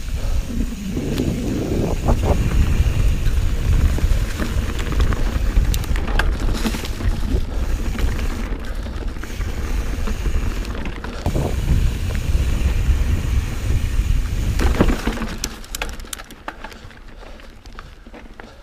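Santa Cruz Hightower 27.5+ mountain bike ridden fast over a rough dirt trail: a loud, steady low rumble with rattling and clicking from the bike, easing off about fifteen seconds in.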